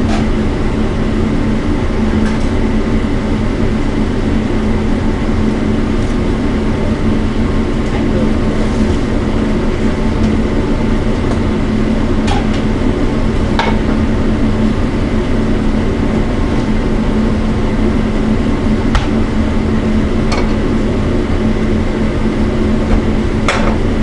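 Steady loud drone of a commercial kitchen exhaust hood fan, with a few light clicks of a spatula against a frying pan.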